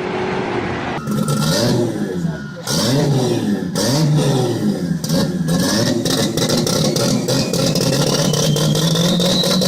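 Toyota Supra engine with antilag, revving up and down repeatedly, with sharp popping and banging throughout. In the second half a rising whine climbs as the engine pulls under acceleration.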